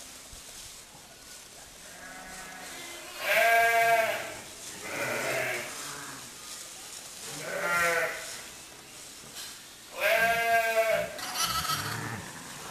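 Sheep bleating: a handful of separate bleats, each about a second long, the loudest about three and a half and ten seconds in, with weaker ones between.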